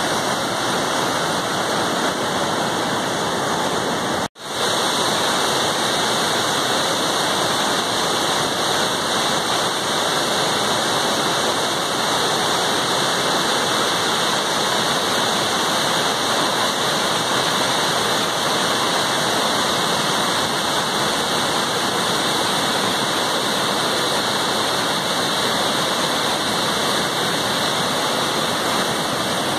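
Verde River floodwater from a 20,000 cubic feet per second Horseshoe Dam release, rushing as white-water rapids over rock ledges: a steady, loud rush of water. The sound cuts out for an instant about four seconds in.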